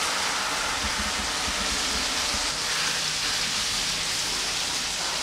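Rohu fish roe and spice paste sizzling steadily in hot oil in a frying pan as they are stirred with a wooden spatula.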